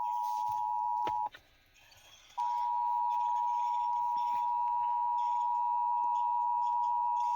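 Emergency Alert System two-tone attention signal, a steady dual tone sounding the start of a required monthly test. It cuts out about a second and a quarter in and starts again about a second later.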